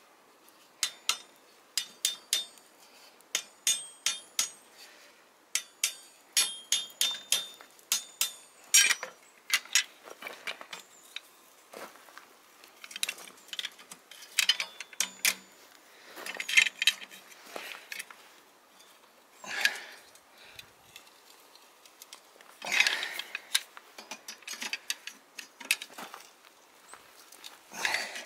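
Hammer strikes ringing on a steel bar clamped in a blacksmith's leg vise, in quick runs for the first several seconds. Then come scattered metal clanks and scrapes as a bending wrench works the hot bar.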